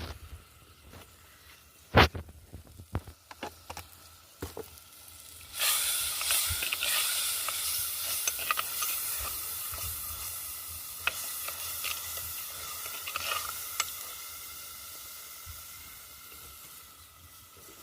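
A few sharp knocks and clinks of a cooking pot and utensils, then, about five and a half seconds in, a sudden loud sizzle of food hitting hot oil, slowly dying down.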